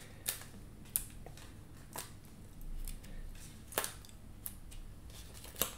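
Small sharp ticks and paper crackles of release paper being peeled off adhesive foam squares and the squares pressed onto cardstock: about five distinct clicks, roughly a second apart, quiet.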